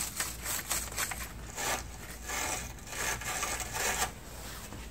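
Wire battery-terminal brush scrubbing the inside of a car battery's cable clamps: quick repeated back-and-forth scraping strokes, a few a second, cleaning the terminals before they go back on the posts.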